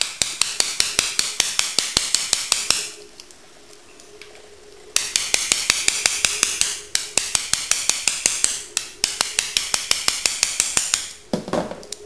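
A CISA bump key in a CISA gate lock being struck over and over: sharp metallic taps about five or six a second, in two long runs with a pause of about two seconds between. The pins have not yet jumped to the shear line, so the lock stays shut.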